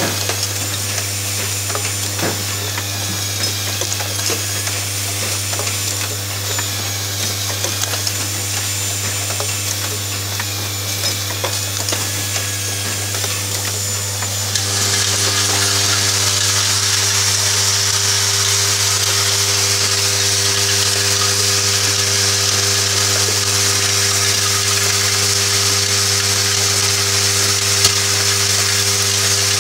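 Automated MCB box clamping and screwing assembly machine running: a steady low hum with frequent small clicks and ticks from its mechanisms. About halfway through, a louder steady hiss comes in and stays.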